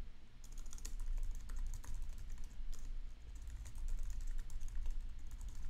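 Typing on a computer keyboard: a run of quick, irregular keystrokes over a low steady hum.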